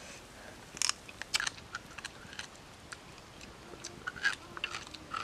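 Close-up eating sounds of a man biting into and chewing a piece of cooked pork: irregular wet crunches and mouth clicks, loudest about a second in and again near four seconds as he takes a bite.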